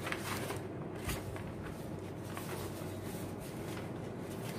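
Quiet room tone: a steady low hum and hiss, with a couple of faint soft clicks near the start.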